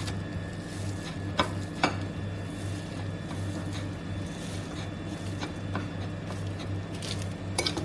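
Metal fork mashing soft motichoor laddus on a ceramic plate: quiet squashing and scraping, with a few light clicks of the tines against the plate. A steady low hum runs underneath.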